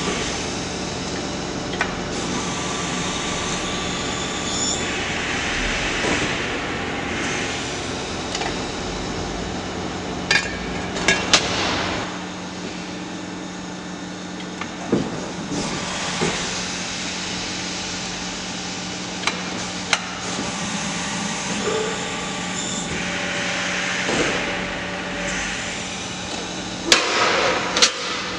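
Press brake folding sheet metal: a steady machine hum runs throughout, with swells of broad noise about every ten seconds and scattered sharp metallic clanks. The loudest clanks come in a cluster near the end as the sheet is handled at the tooling.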